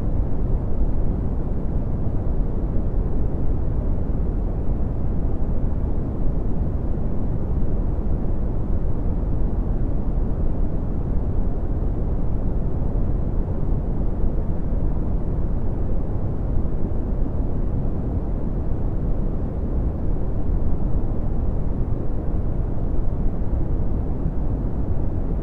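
Red (Brownian) noise: a steady, deep rumbling hiss with most of its energy in the low frequencies and little above about 1 kHz, unchanging throughout.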